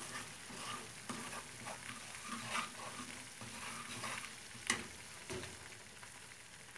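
Wooden spoon stirring semolina and flour toasting in melted butter in a small frying pan, a soft sizzle with light scraping. There is one sharp clack about two-thirds of the way in, and near the end a silicone spatula starts stirring crumbled curd cheese in a second pan.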